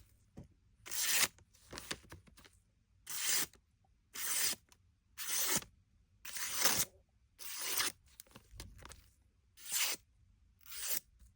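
Repeated strokes of a Victorinox pocket knife's blade, about one a second, each a short rasping hiss with a quiet gap between.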